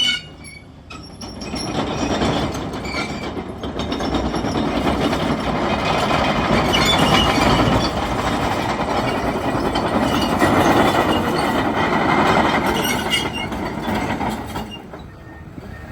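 Komatsu D61PXi-24 crawler bulldozer on the move, its steel tracks and undercarriage clanking and rattling loudly over the engine. The noise builds about a second in and dies down near the end.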